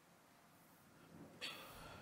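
Near silence, then about one and a half seconds in, a Qur'an reciter draws a sharp breath in close to the microphone, lasting about half a second, ahead of his next phrase.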